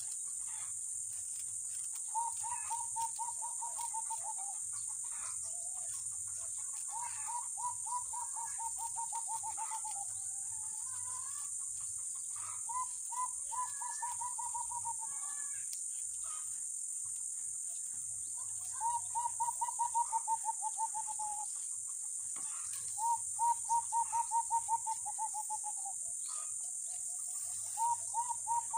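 A steady, high-pitched drone of insects such as cicadas or crickets, over which a bird repeats a fast, slightly falling trill of about two seconds, six times at intervals of roughly five seconds.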